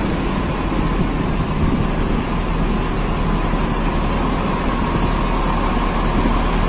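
Large bus's diesel engine running steadily as the bus backs up: an even, continuous rumble.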